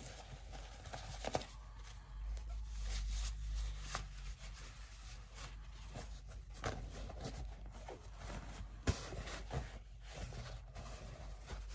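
Faint rustling and handling of a green fabric bag as its twine tie is undone and the bag is opened, with a few light clicks and taps, one sharper about nine seconds in.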